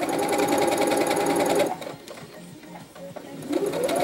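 Electric domestic sewing machine stitching through fabric at a steady speed, then stopping a little under halfway through. Near the end its motor starts again, its whine rising in pitch as it gets back up to speed.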